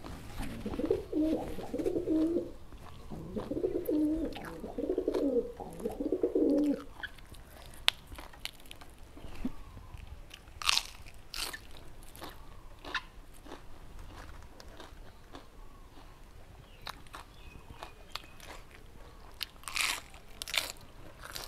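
Close-miked crunching and chewing of raw vegetables, with sharp bites about ten seconds in and again near the end. Over the first seven seconds a dove coos repeatedly.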